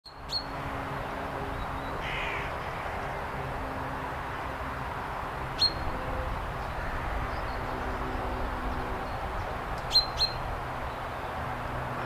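Common chaffinch giving short, sharp single call notes: four in all, one at the start, one in the middle and two close together near the end, over steady background noise.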